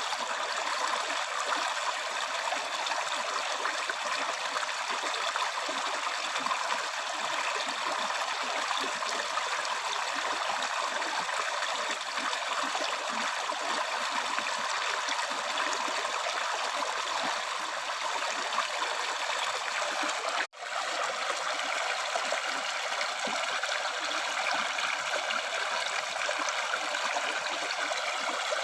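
River stream flowing steadily, a continuous rushing, trickling water sound. It cuts out for an instant about two-thirds of the way through, then carries on.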